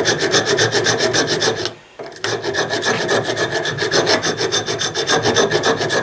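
Hand file scraping back and forth on the torch-repaired joint of a tractor's rocker oil line, in quick even strokes, taking down a domed-up spot. The filing breaks off briefly just under two seconds in, then starts again.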